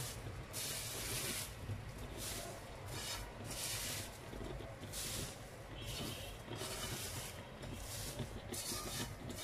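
Dried taro (gabi) leaves rustling and crackling as handfuls are dropped and pressed down into a pan, in a series of short rustles roughly a second apart, over a low steady hum.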